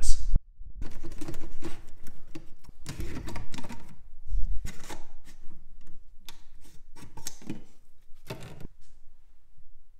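Irregular clicking and clattering of a rigid 3D-printed plastic battery cell holder being handled against the printer's bed and frame. The clicks thin out and grow quieter toward the end.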